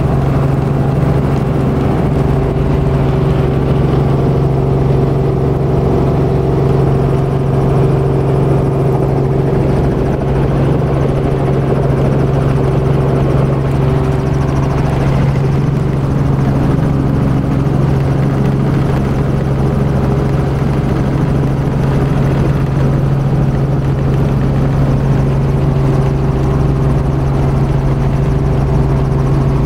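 Robinson helicopter's engine and rotor running with a steady drone, heard from inside the cabin.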